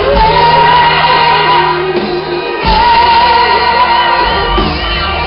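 Live pop music from a band with a singer holding long notes, played loud over a concert PA. The bass drops out briefly about halfway through and comes back in.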